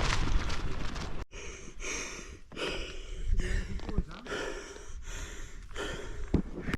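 A cyclist breathing hard after a steep climb: rapid, gasping breaths in and out, his lungs labouring. For about the first second a loud rush of wind or riding noise covers it, then it stops suddenly.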